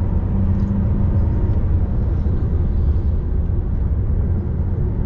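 Steady low rumble of a Fiat Toro 2.0 turbodiesel pickup driving at road speed, heard from inside the cab: engine and tyre noise together.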